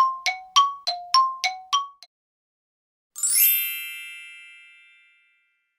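A bell struck rapidly and evenly, about three strokes a second, each a clear two-tone ding, stopping about two seconds in. After a short pause, a single bright, shimmering metallic chime rings out and fades over about two seconds.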